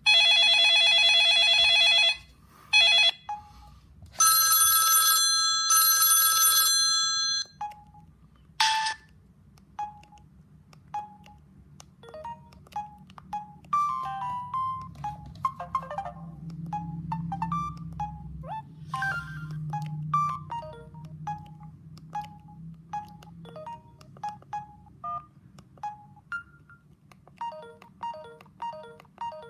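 Samsung S3600 mobile phone playing its ringtones through its small speaker: loud, buzzy electronic tones in short blasts for the first seven seconds or so, then a simple melody of short high beeps.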